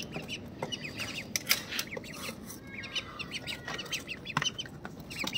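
Small caged birds chirping in quick, repeated short calls, with a few sharp knocks as a plastic seed cup is set into the wooden cage.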